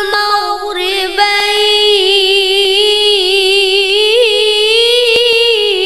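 A boy reciting the Quran in melodic tajweed style, drawing out one long, ornamented note with a wavering pitch. The note lifts a little about four seconds in and settles lower near the end.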